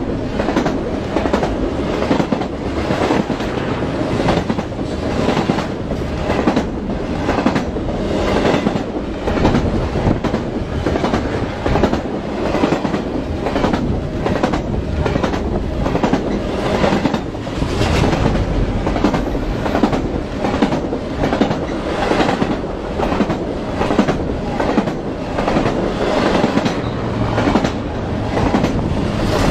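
Double-stack container freight train passing close by: a steady rumble of the cars, with wheels clicking over the rails in an even, repeating rhythm.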